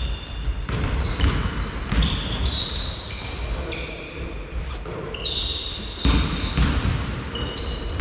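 A basketball bouncing on a sports hall floor in irregular thuds, with short high squeaks of sneakers on the court, all echoing in the large hall.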